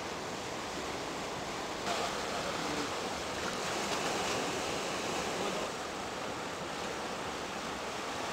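Ocean surf washing and foaming among shoreline rocks, a steady rush of water that grows a little louder about two seconds in and eases back near the end.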